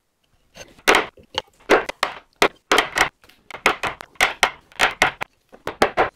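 Mallet striking a wood chisel again and again, about two sharp knocks a second, some in quick pairs, as waste wood is chopped out of a joint.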